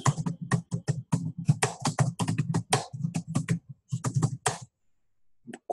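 Fast typing on a computer keyboard: a quick run of key clicks, several a second, each with a soft thud. It stops about a second before the end.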